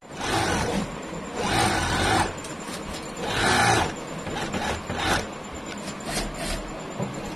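Work at a flatlock hemming machine: rasping, rubbing noise in three swells of about a second each and one short one near the end, over steady machine noise.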